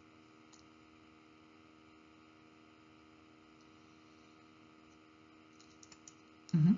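Quiet room tone with a steady electrical hum and a few faint clicks. Near the end a brief, louder voice sound cuts in.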